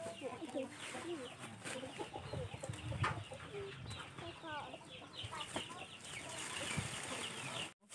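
Chickens clucking, with many short high chirps running through it.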